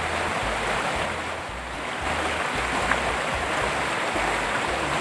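Steady rushing of a swollen, muddy river running over a rapid.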